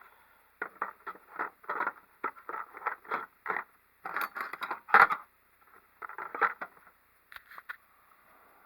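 Small metal hand tools being handled in a steel tool chest drawer: a run of quick clinks and scrapes, a sharper knock about five seconds in, then a few more clinks.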